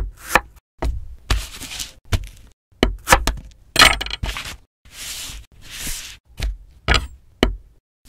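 Kitchen knife chopping and slicing on a wooden cutting board: irregular sharp knocks of the blade on the board, mixed with half-second scraping strokes.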